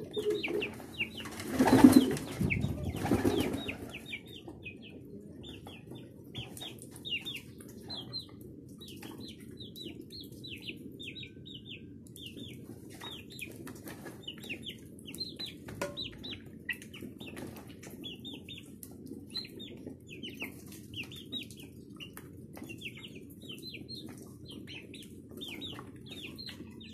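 Wings flapping in a short, loud flurry about two seconds in. After it comes a long run of high, falling peeps, several a second, from young chickens kept among pigeons.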